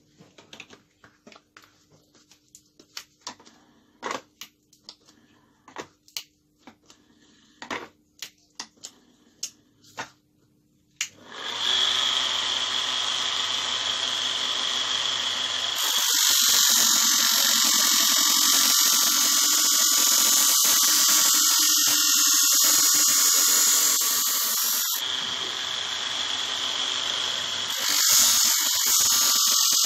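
Scattered knocks and clicks of handling, then about eleven seconds in a small electric knife-sharpening machine starts up and runs steadily. A few seconds later a harsher, higher grinding joins as the blade is pressed to the abrasive wheel; it lets up briefly and comes back near the end.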